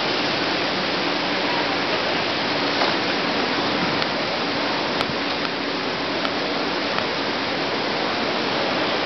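Steady outdoor city noise: an even wash of traffic and street din with no single sound standing out.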